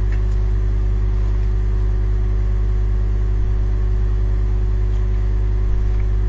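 Steady low hum with a buzz, constant in pitch and level.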